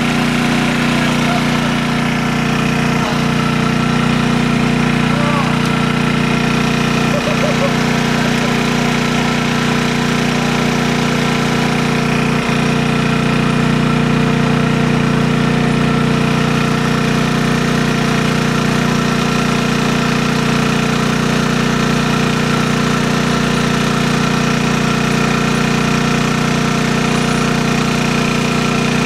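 Small engine on a bowfishing boat running steadily at a constant idle, an even drone that never changes.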